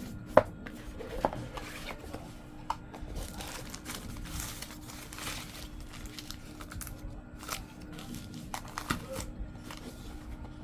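Packaging being handled: plastic wrap crinkling and rustling, with scattered sharp clicks and knocks from the box and its contents.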